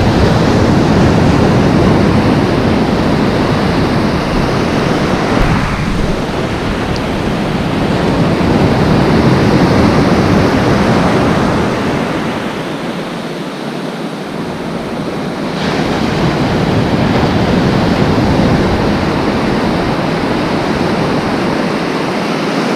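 Loud ocean surf breaking and washing in around the wader, rising and falling as the waves come in, easing off about halfway through before building again.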